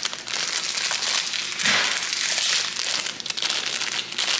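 Clear plastic packaging bag crinkling and rustling as it is handled and opened to get a black metal cabinet handle out.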